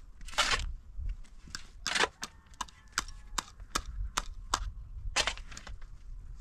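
Pickaxe striking into hard dirt: three heavy strikes, with many lighter sharp clicks and scrapes of tools working the loosened soil between them.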